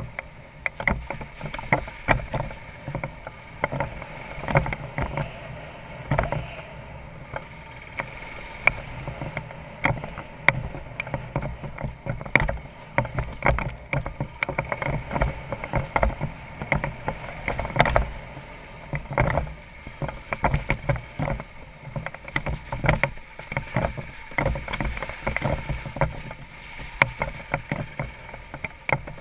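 BMW F650GS Dakar's single-cylinder engine running while riding a rough gravel and dirt track, with frequent irregular knocks and rattles as the bike jolts over stones and ruts.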